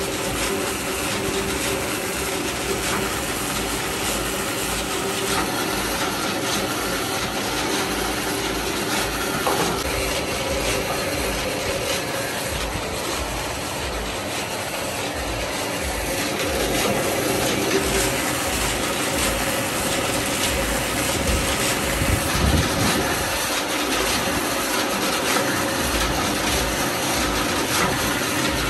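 Floodwater rushing and churning as it pours through gaps in a sandbag barrier, a steady splashing roar, with a low steady hum underneath.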